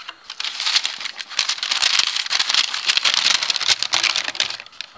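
Paper wrapping inside a sneaker box crinkling and rustling as it is pulled back by hand, a dense run of quick crackles.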